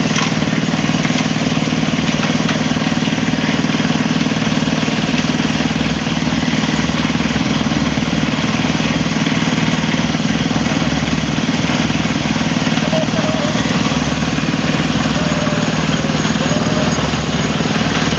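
Engine of a small portable concrete mixer running steadily at a constant speed.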